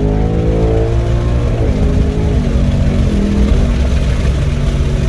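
Car engine under hard acceleration, its note climbing and then dropping at each upshift of the automatic gearbox, several shifts in a row.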